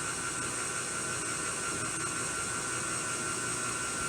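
KitchenAid stand mixer running steadily on low speed as it mixes batter: an even motor whir with a constant high whine.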